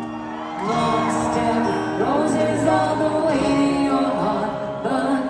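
Live pop performance in an arena: a woman singing while strumming an acoustic guitar.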